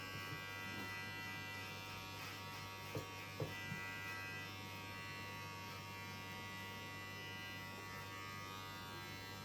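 Electric hair clippers buzzing steadily while shaving a child's head down close, with a couple of small knocks a little past three seconds in.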